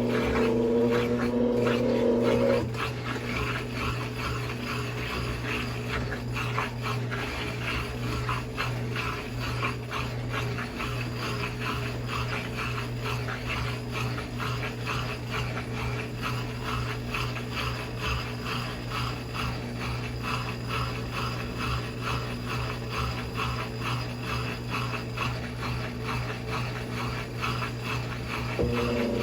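Brastemp Inteligent 7 kg washing machine working through its spin ramps. A wavering motor whine for the first couple of seconds cuts off, leaving a steady hum with a fast, even ticking over it.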